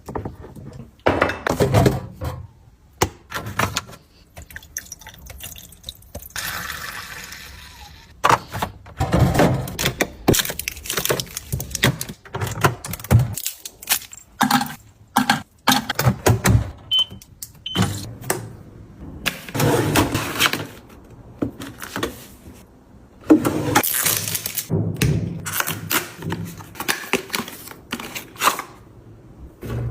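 Household objects being handled and set down: a long run of knocks, clicks and rustles, with a steady hiss for about two seconds early on and two short high beeps just past the middle.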